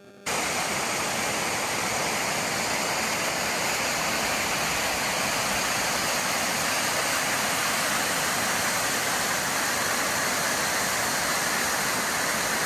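Bertha Falls, a mountain waterfall cascading down tiers of layered rock: a steady, even rush of falling water that starts abruptly just after the beginning.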